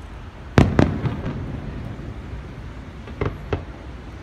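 Aerial fireworks shells bursting: two sharp bangs about half a second in, a couple of smaller pops right after, and two fainter bangs a little past three seconds in, over a steady low background hum.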